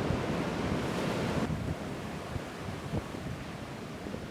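Surf washing on the shore with wind buffeting the microphone, louder for about the first second and a half, then dropping suddenly to a quieter wash.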